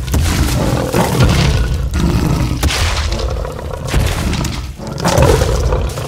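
Cartoon fight sound effects: a large creature's roars mixed with crashing, breaking impacts and booms, coming in a series of loud bursts.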